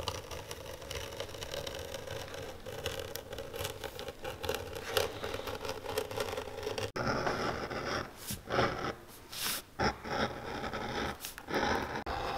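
Utility knife blade drawn through leather, a steady scratchy cutting drag. About seven seconds in it changes to short separate scraping strokes of a hand leather tool shaving a thin strip off the edge of a small leather piece on a wooden bench.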